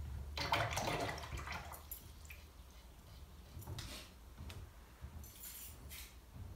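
A paintbrush swished in a plastic pot of water for about a second and a half, then a few light brushing and tapping noises as the wet brush works paint in a watercolour palette.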